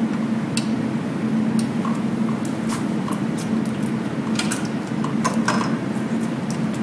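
Scattered small metallic clicks and taps as test-kit hoses are worked off the brass test cocks of a reduced-pressure (RPZ) backflow preventer, heard over a steady low hum.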